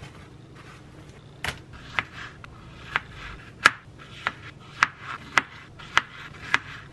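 Kitchen knife slicing strawberries on a plastic cutting board: a sharp tap each time the blade hits the board, about two a second, starting about a second and a half in.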